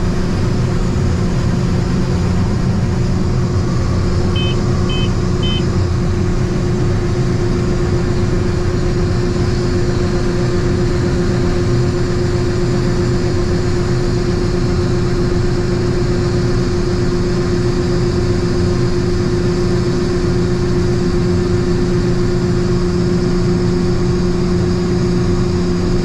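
John Deere S670 combine's diesel running steadily while its unloading auger pours shelled corn into a grain cart, a constant machine drone with a steady hum. Three short high beeps sound about five seconds in.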